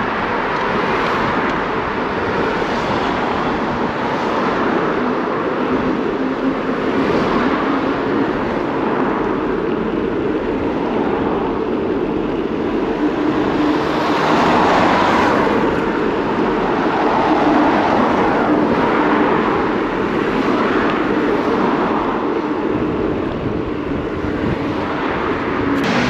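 Steady wind and road noise while riding a bicycle, swelling louder twice past the middle.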